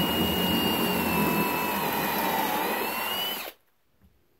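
Cordless drill driving a stepped pocket-hole bit through a Kreg pocket-hole jig into a board, a steady whine that sags slightly under load and rises again just before it stops sharply about three and a half seconds in.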